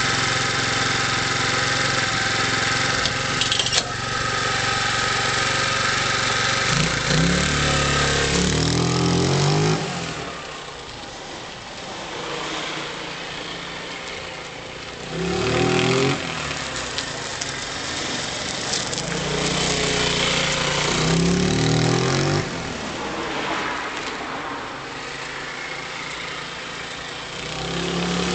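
Engine of a Quinky BTL125 idling steadily, then given several short throttle blips that raise its pitch, settling back to a lower idle between them.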